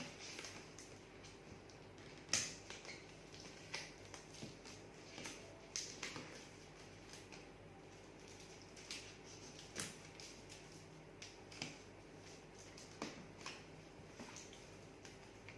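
Scattered light clicks, taps and rustles of hands handling a gimbal's packaging and parts during unboxing. The sharpest click comes about two seconds in.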